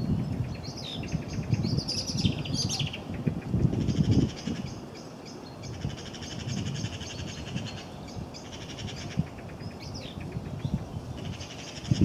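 Small birds singing and chirping, with repeated high trills, over a low rumble.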